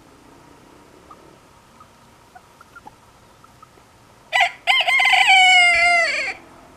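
Silkie rooster crowing: a short first note, then one long loud note that falls in pitch at the end, after a few faint clucks.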